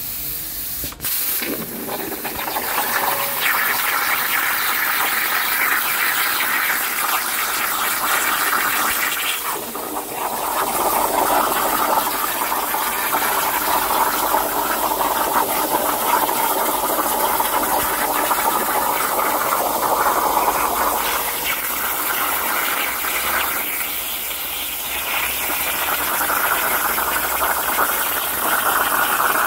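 CNC plasma cutter's arc cutting metal: a loud, steady hiss, dipping briefly about a second in and again near ten seconds.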